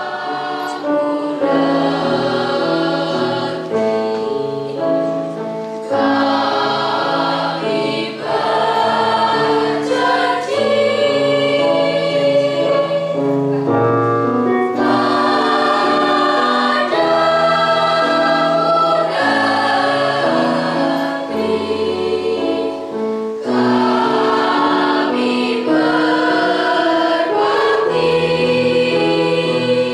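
A mixed school choir of girls' and boys' voices singing together in held notes, phrase after phrase, with short breaks between phrases.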